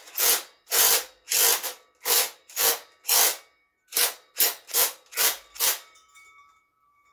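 Cordless impact wrench run in about a dozen short trigger bursts, tightening an engine-mount bolt on a KX85 dirt bike; the bursts stop about six seconds in.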